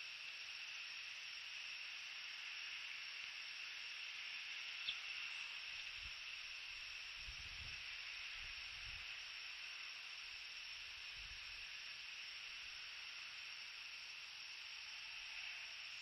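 Steady high hiss on the nest-cam microphone. There is a single sharp click about five seconds in, then soft low thumps and rustles around the middle as the bald eagle shifts and settles down over its egg in the nest.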